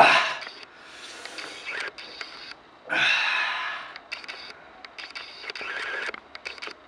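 A man breathing hard and noisily through his mouth from the burn of a Carolina Reaper chili pepper: a loud groan fading out in the first half second, a long loud breath out about three seconds in, then quicker hissing breaths with small mouth clicks.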